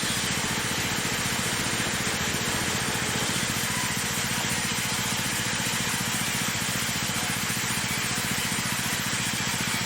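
A plywood cutting machine running steadily, a constant mechanical noise with a fast, even pulse underneath that does not change.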